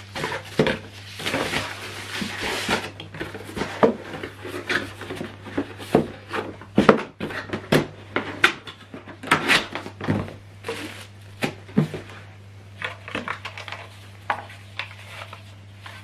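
Handling noises on a tabletop: a rustle, then irregular knocks and clicks as a plastic portable Bluetooth speaker and its packaging are moved and picked up, over a low steady hum.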